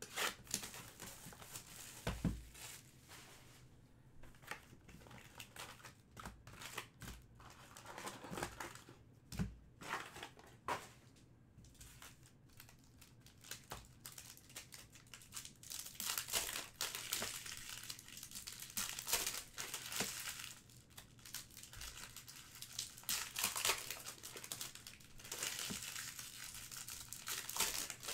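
Trading-card pack wrappers being torn open and crinkled by hand: irregular crackling and tearing that gets busier in the second half, with a couple of soft knocks in the first half.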